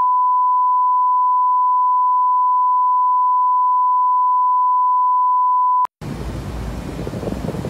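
A steady 1 kHz test tone of the kind played with colour bars, which cuts off abruptly about six seconds in. After a brief silence comes a rushing, uneven noise of wind.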